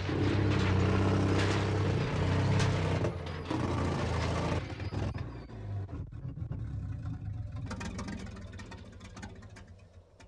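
Modified GMC M211 military cargo truck engine running loud and deep under load. About four and a half seconds in it drops abruptly to a quieter rumble scattered with clicks and rattles, which fades away near the end.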